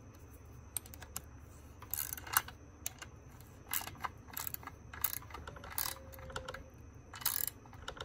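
A steel wrench clicking and tapping on a nut as it is worked round in short, irregular strokes. The nut is being tightened against a spacer on a Husqvarna 390XP chainsaw bar stud, pressing the stud into the crankcase.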